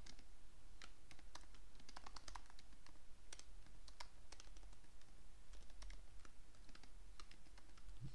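Typing on a computer keyboard: an uneven run of quick key clicks as a line of code is typed.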